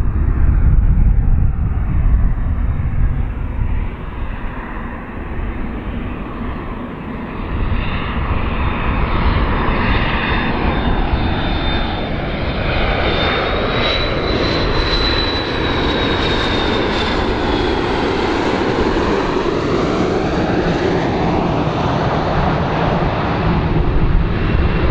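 McDonnell Douglas MD-80-series airliner's twin rear-mounted jet engines on landing approach: a continuous jet roar and rumble with a high engine whine that slides down in pitch about two-thirds of the way through as the plane passes close by.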